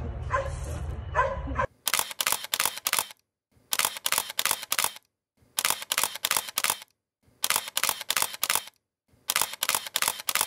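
Camera shutter clicking in rapid bursts of about five or six shots, a burst roughly every two seconds, with dead silence between bursts. Before the bursts begin, a low rumble with a dog's whines.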